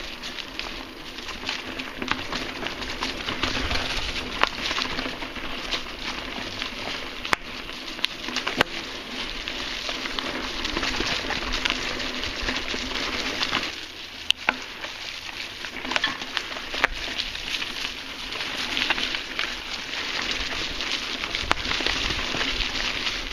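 Mountain bike tyres rolling over dry fallen leaves on forest singletrack: a continuous rustling crunch with frequent sharp clicks and snaps, easing briefly a little past halfway.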